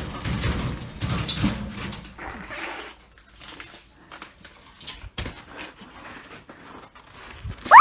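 Animal sounds, ending in one short, loud cry that rises and falls in pitch.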